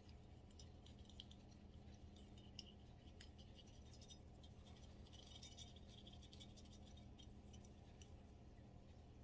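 Faint scratching and light clicks as a Walther CCP pistol slide is handled and scraped clean with a small tool, over a low steady hum.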